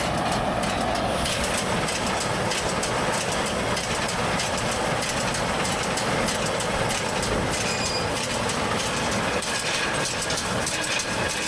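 Tractor and round baler running steadily, a constant mechanical din with a fast rattling clatter of the baler's chains and moving parts.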